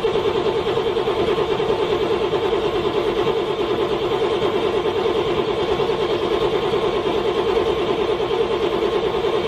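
Car engine cranking on the starter motor in the cold without firing, a steady rapid chugging of about six to seven pulses a second that keeps up evenly.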